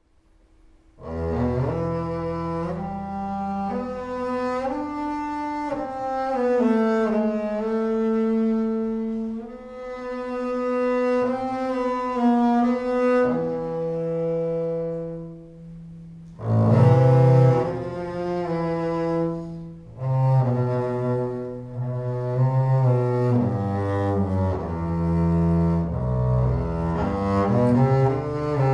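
Solo double bass played with the bow, entering about a second in with a slow melody of long held notes that slide between pitches. It eases off around the middle, then comes back loudly with a strong attack and busier passages.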